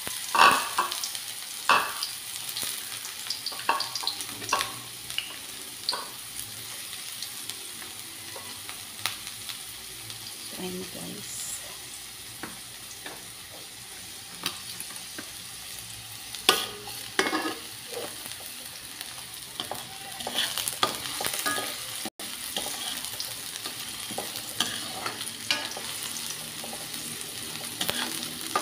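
Chopped garlic and onion sizzling steadily in hot oil in a wok, with a spatula scraping and knocking against the pan in short spells as the aromatics are stirred.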